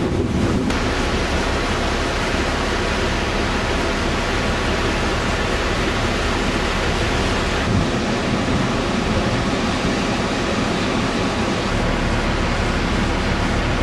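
Steady rushing noise of the River Nith in flood, fast churning water.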